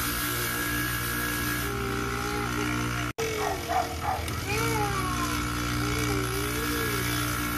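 Polishing motor with a cloth buffing wheel running with a steady hum. It cuts out for an instant about three seconds in, then carries on unchanged.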